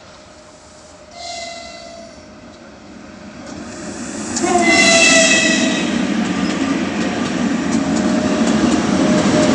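The horn of a 2ES5K Ermak electric locomotive sounds twice as a greeting: a short blast about a second in and a louder, longer one about four and a half seconds in. Then comes the steady rumble of the locomotives and the freight train passing close by.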